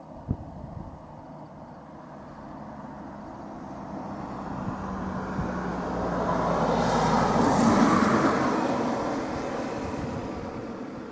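A motor vehicle passing by outside. Its rushing noise swells gradually, peaks about eight seconds in, then fades. A single sharp click comes right at the start.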